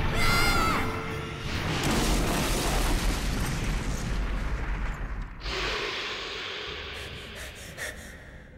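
Battle sound effects over background music: a short warbling high-pitched cry, then a long rumbling boom that cuts off sharply, followed by a weaker crashing swell that fades away.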